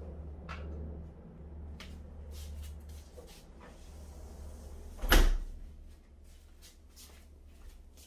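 A door shutting once with a loud knock about five seconds in, over a low steady hum, with a few light clicks before it.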